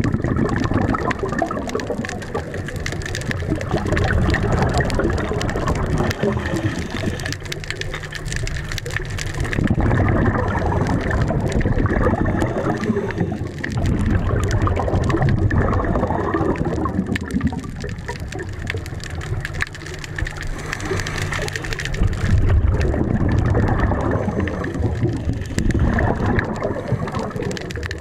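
Scuba diver's regulator breathing heard underwater: bubbles gurgling and rushing, swelling and easing every several seconds with each breath, over a faint steady high tone.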